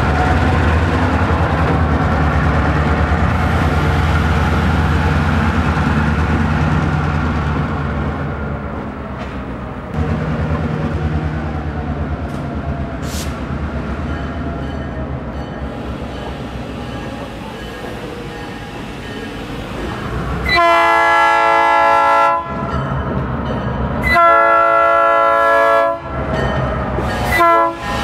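Diesel freight locomotives rumbling past at low speed, then the train's multi-chime air horn sounding two long blasts and a short one, with a fourth blast starting at the end: the standard grade-crossing signal.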